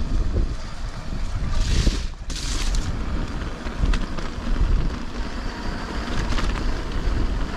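Wind buffeting the microphone of a chest-mounted GoPro as a mountain bike rolls along, giving a strong, fluttering low rumble. Two short bursts of hiss come about two seconds in, and there are a few light knocks later.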